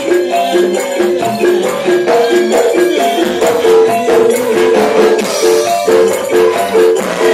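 Javanese gamelan music: metallophones play a steady, repeating melody over sharp percussion strokes.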